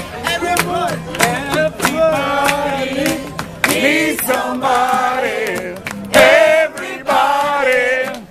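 Several people singing together to a guitar played on the street, with long held sung notes.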